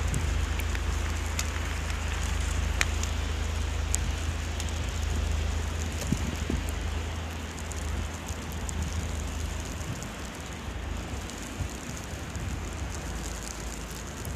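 Wind rumbling on the microphone, easing off about halfway through, over a crackling hiss with scattered small clicks from snow being crunched and pushed through by a small dog.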